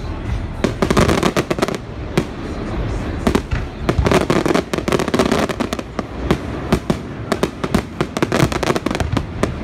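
Aerial fireworks shells bursting in rapid succession in a professional display: a dense run of sharp bangs and crackles, coming in three heavy clusters, over a continuous low rumble.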